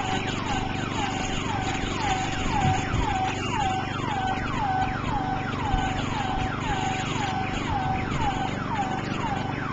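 Burglar alarm siren going off, each wail sweeping down in pitch and repeating about twice a second, a false alarm. Wind noise rumbles underneath.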